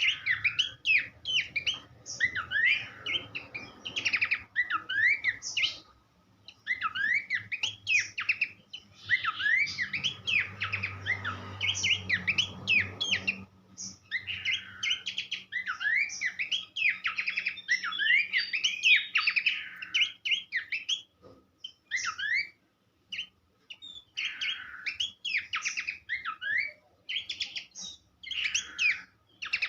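Pelanduk semak (a babbler) singing: phrases of quick, sharp chirps that sweep up and down in pitch, packed closely together and broken by short pauses.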